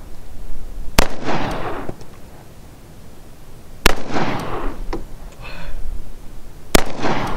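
Three shots from a Rock Island 10mm pistol firing 180-grain ball ammunition, about three seconds apart, each trailing off in about a second of echo.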